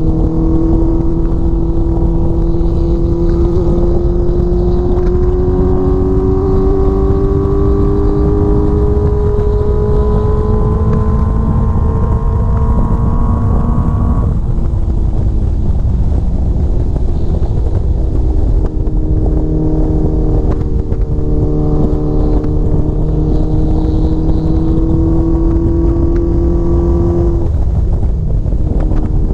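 Honda CBX750 cafe racer's inline-four engine heard from the rider's seat, pulling along with its pitch slowly climbing, then the throttle shuts off about halfway through. It pulls again, climbing gently, and eases off again just before the end. Heavy wind rumble on the microphone throughout.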